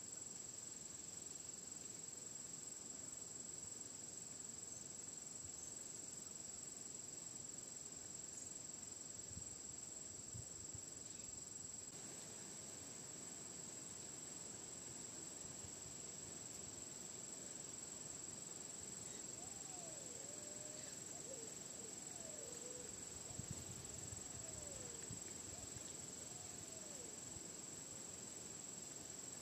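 Insects trilling in a faint, steady, high-pitched drone, with a few faint short descending whistles about twenty seconds in.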